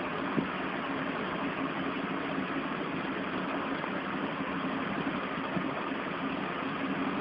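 A steady droning hum with hiss, unchanging in level, like a motor or fan running; a single faint tick comes about half a second in.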